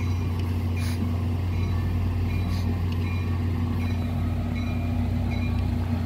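Diesel locomotive of a stopped passenger train idling with a steady low hum.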